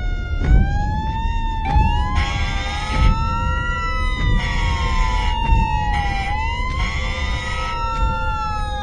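Several emergency-vehicle sirens wailing at once, their pitches slowly rising and falling and crossing each other, over a low rumble.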